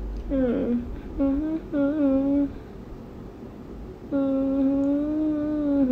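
A woman humming: a few short, wavering notes, then, about four seconds in, one long note held nearly level.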